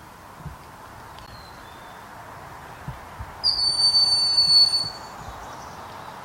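A hawk calling: one high, thin whistle held for about a second and a half, starting about three and a half seconds in, over steady outdoor hiss. Fainter short high peeps come earlier.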